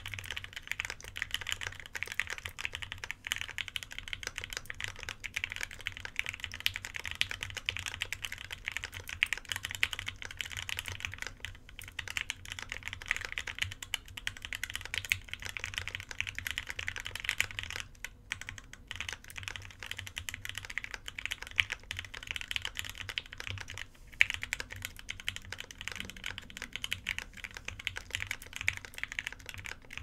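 Typing on a Finder Works Tengu gasket-mount mechanical keyboard with an aluminium plate, lubed Gateron Mink linear switches and DMK Vintage keycaps. It is a dense run of keystrokes, several a second, broken by a few brief pauses.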